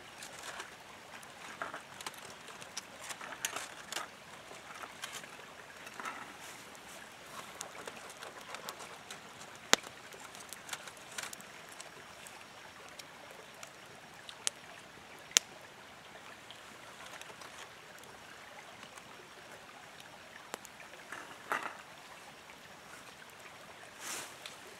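Low, steady rush of a creek, with scattered small clicks and rustles of people eating off plates and foil. Two sharper clicks come about ten and fifteen seconds in.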